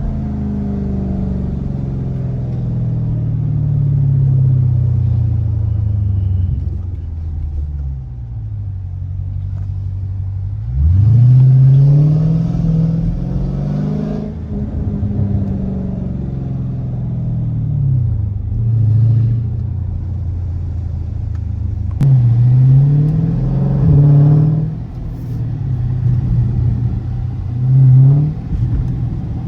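A 392 Hemi 6.4-litre V8 in a Dodge Challenger Scat Pack, its catalytic converters gutted, coasting down in revs and then accelerating hard several times. Each pull rises in pitch and then drops back, as at a gear change.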